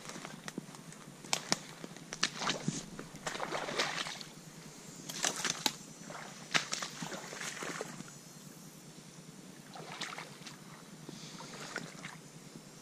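Boots wading through shallow swamp water and pushing through grass and brush: irregular sloshing steps mixed with rustling vegetation.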